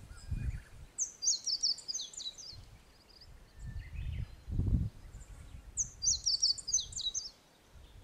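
A small songbird sings twice, about five seconds apart. Each time it gives a quick phrase of high, sharply falling notes lasting about a second. In between, short gusts of wind buffet the microphone.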